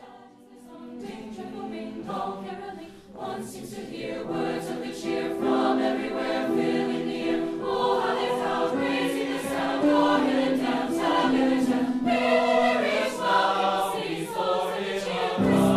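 Choir singing slow, held notes, building up from quiet over the first few seconds.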